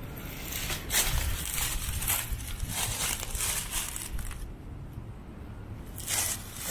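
Footsteps crunching through dry fallen leaves at a walking pace, each step a short crackling crunch. They stop for over a second about two-thirds of the way through, then start again near the end.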